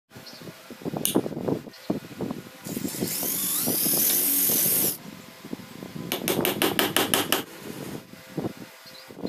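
Cordless drill boring into a pine board, its motor whine rising as it spins up and running for about two seconds before stopping. About a second later comes a quick run of rapid, evenly spaced clicks, with light handling knocks before and after.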